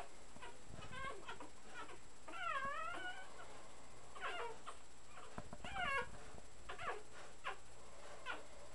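Three-week-old puppies squeaking and whimpering while nursing. A string of short, high, falling cries comes every second or so, with one longer, wavering whine about two and a half seconds in.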